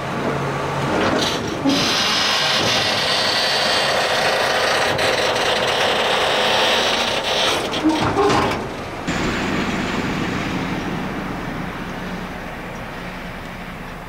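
John Deere 7R 330 tractor passing close with two HW80 tipping trailers, the trailers rattling and clattering loudly. About nine seconds in, the sound cuts to the tractor's engine running steadily further off, slowly fading.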